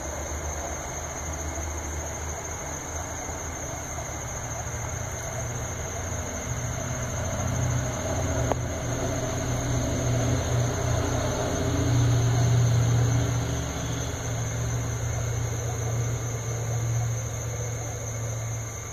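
Diode laser engraver running a burn on a rotary turntable: its stepper motors hum, the pitch and loudness shifting as the dowel turns and the head moves, over a constant high-pitched whine.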